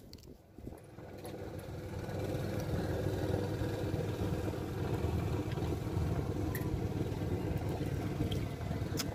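A motorboat's engine running steadily nearby, growing louder over the first two or three seconds and then holding level.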